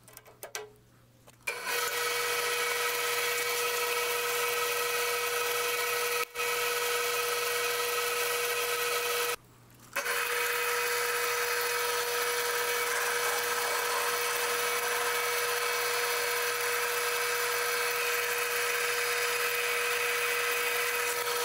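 Small metal lathe running at a steady speed with a constant high whine, while a twist drill fed from the tailstock bores out a hole in a spinning steel coupler. A few light clicks come first, and the running stops for about half a second about nine seconds in.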